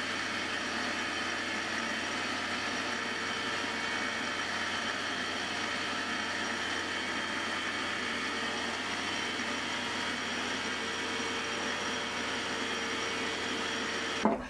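MX-180D 600 W 7x12 mini metal lathe running steadily, a constant motor and gear whine with several fixed tones, as the end of a part is smoothed in the chuck; it stops abruptly near the end.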